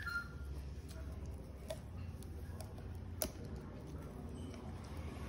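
Golden retriever gnawing on a stick of purple sugarcane, with a few sharp, scattered crunching cracks as its teeth bite into the cane.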